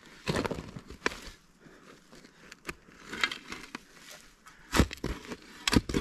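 A small spade digging into forest soil: several separate stabs and scrapes of the blade into the earth, with the loudest near the start and near the end.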